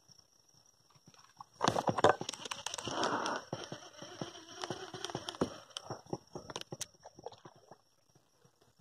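Fishing rod and reel in use: a rapid, irregular clatter of clicks and rattles with a short whir, starting suddenly about one and a half seconds in and dying away about five seconds later.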